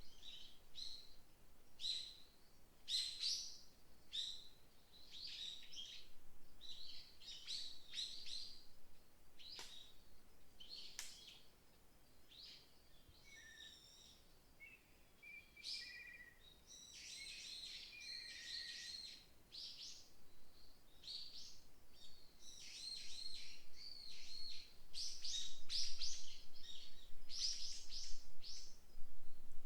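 Small songbirds chirping and singing in a forest, several calls overlapping in quick high trills and chirps. The calls come in bouts, with the densest chorus around the middle and again toward the end.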